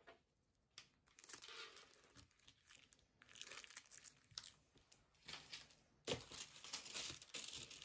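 Soft crinkling and rustling of small stacks of paper nail water-decal sheets being handled and set down on a desk, with louder rustling and handling from about six seconds in.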